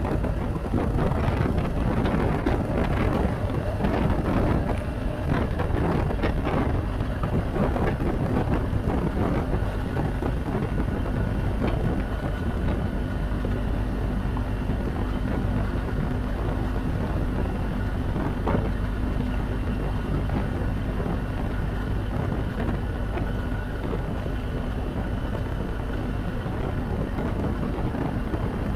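BMW R1250 GS Adventure motorcycle riding at a steady pace, with wind rushing over the microphone.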